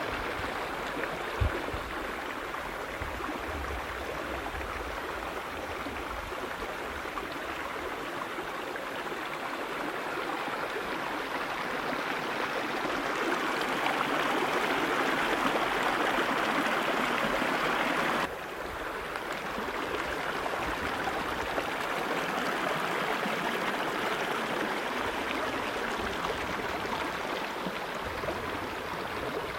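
Creek water running over rocks, a steady rush that swells about halfway through and then drops suddenly a few seconds later. A brief low thump comes near the start.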